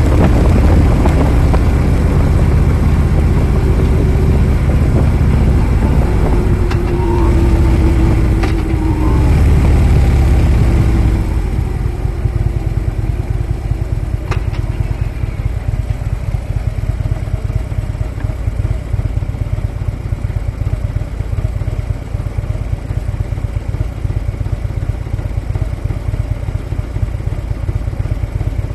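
Harley-Davidson V-twin motorcycle engine running on the move. It is loud with its pitch rising and falling for about the first eleven seconds, then settles to a quieter, steady run.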